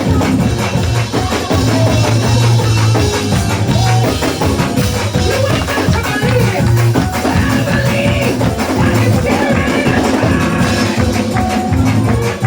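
Lively gospel praise music from a church band: a steady drum beat and a heavy bass line, with a tambourine shaking along.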